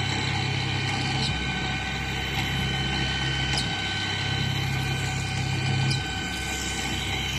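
CNC pipe drilling machine running dry, with a steady high whine over a low hum. The hum steps up and down a few times, about a second in, near the middle and near the end, with faint ticks now and then.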